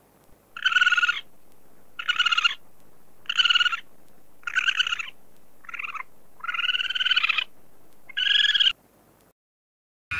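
Ring-tailed lemur calling: seven short, high-pitched calls, about one every second and a quarter, the sixth drawn out longer than the rest.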